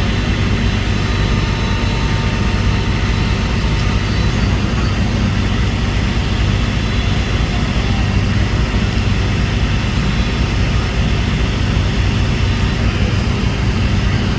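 Backhoe loader's diesel engine running steadily at working revs, a constant low drone.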